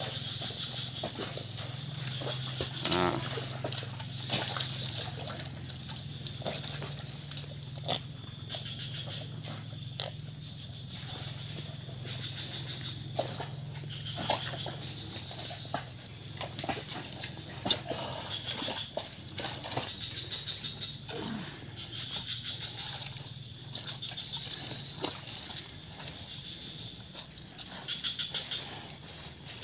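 Bali cattle drinking salt water from plastic buckets, with irregular short slurping and smacking sounds as they suck up the water.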